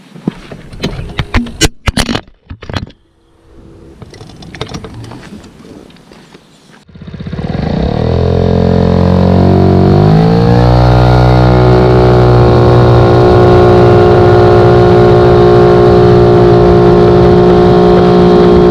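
Suzuki Address V50 scooter's 50cc single-cylinder engine, breathing through a BEAMS exhaust with the baffle removed, revving up loudly as it pulls away. The pitch climbs for about four seconds and then holds steady. Before that, for about seven seconds, there are only scattered clicks and knocks.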